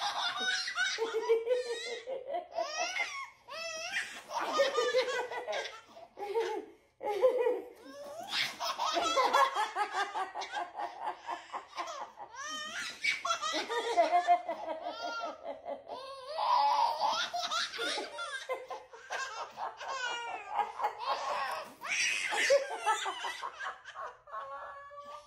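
Baby belly-laughing hard, in long runs of high-pitched laughter and giggles with short breaks between them.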